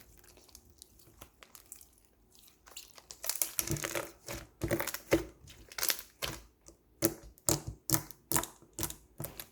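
Slime being squished and pressed by hand. It starts with faint scattered clicks, becomes a dense crackling about three seconds in, then turns into a run of sharp pops and clicks about two a second.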